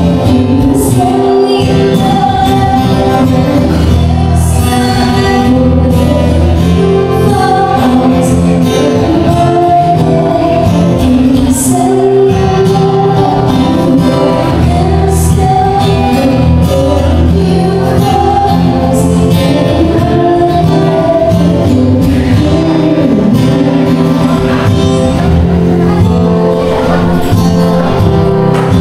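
Background music with a singing voice over a steady bass.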